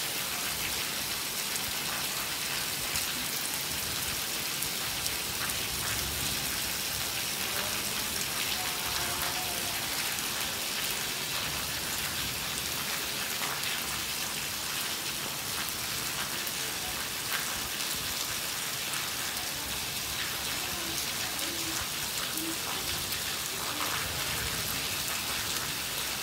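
Heavy rain falling steadily on a wet concrete surface, a dense, even hiss of drops splashing into shallow puddles.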